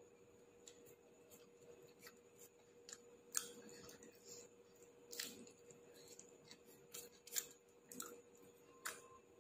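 A person eating, with faint, crisp clicks and crunches of chewing coming roughly once a second over a faint steady hum.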